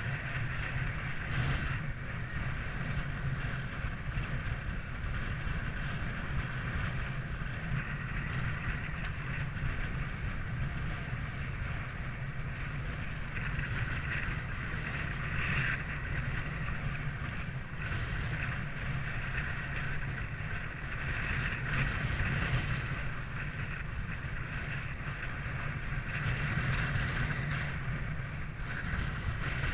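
Strong storm wind rushing over the microphone, a steady low rumble with a hissing rush that swells and eases a little in gusts.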